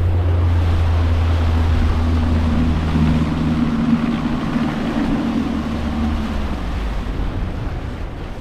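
Boat engine running under way, a steady low drone with rushing wind and water over it. The drone eases off in the last couple of seconds.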